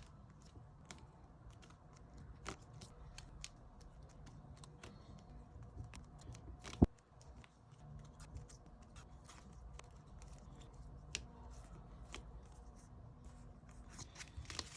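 Quiet unboxing handling noises: scattered small clicks and rustles of packaging and cards being handled. One sharp, louder click comes about seven seconds in.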